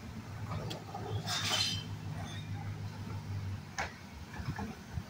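Garbage truck running with a steady low engine hum that cuts off about three and a half seconds in. There is a short hiss about a second in and a sharp click near four seconds.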